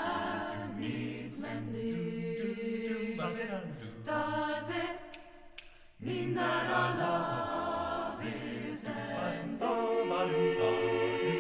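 Mixed-voice a cappella group singing a slow jazz ballad in close harmony, with a low sung bass line moving underneath. About five seconds in the voices die away almost to nothing, then come back in together a second later.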